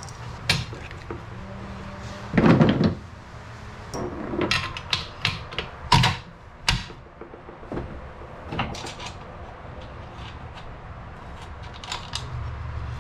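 Knocks, clicks and clatters of tools and parts being handled during work on an outboard motor's shifter mount. A loud rattle comes about two and a half seconds in, and a run of sharper knocks follows around the middle, then lighter clicks.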